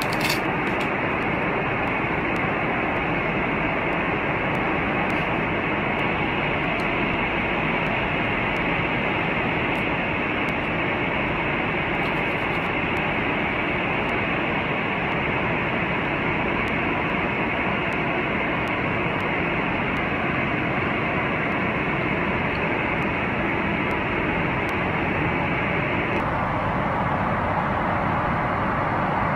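Aircraft cabin noise in flight: a steady, even rush of airflow and engine noise, thinning slightly in its upper part near the end.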